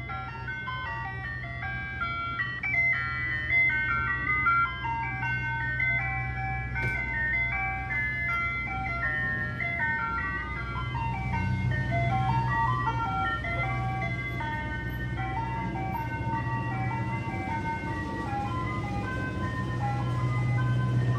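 Ice cream truck chime playing a high-pitched jingle through its loudspeaker, one clear note after another in a repeating tune, over a steady low hum from the truck.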